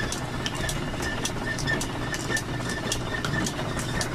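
Petrie's Special grinder in an old belt-driven machine shop, running with a steady hum and a regular click a little over twice a second. It is near the limit of the power the shop's drive system can give.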